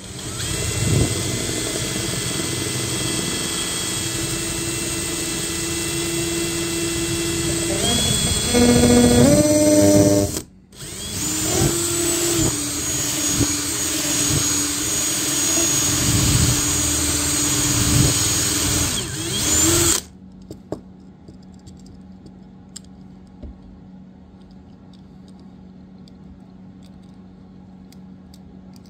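Electric drill with a 1/8-inch bit drilling out the front rivet on the base of a diecast toy car: it runs for about ten seconds, its pitch shifting near the end of that run, stops briefly, then runs again for about nine seconds and stops. Faint handling clicks follow.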